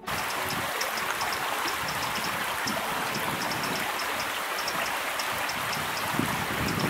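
Steady rushing of running water from a stream, with short high-pitched ticks or chirps scattered through it.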